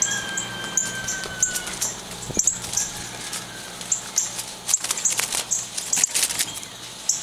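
Trapped northern cardinal giving a run of sharp, high chip notes, a few each second, while its wings flap and brush against the bars of a wooden trap cage.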